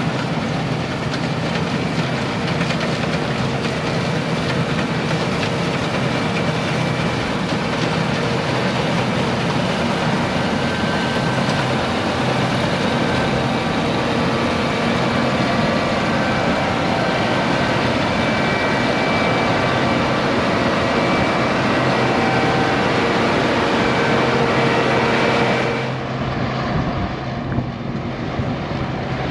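Harvest machinery engine running at a steady drone with several steady tones. About 26 seconds in, it changes to a slightly quieter, duller sound.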